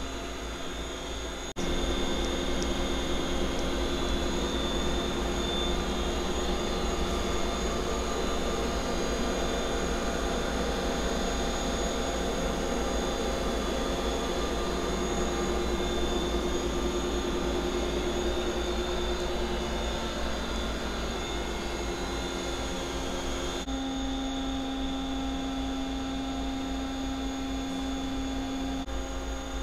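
Doosan Puma 300C CNC turning center powered up and running, a steady hum and whir from the machine with several steady tones. It jumps louder about two seconds in, and the tones change abruptly a few seconds before the end.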